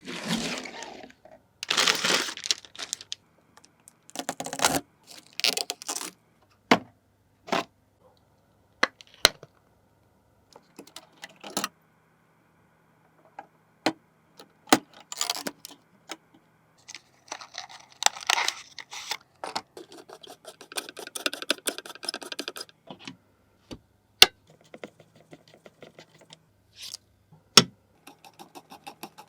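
Close-miked handling sounds: scattered sharp clicks and taps, with bursts of scratching, rustling and fast ticking strokes in between.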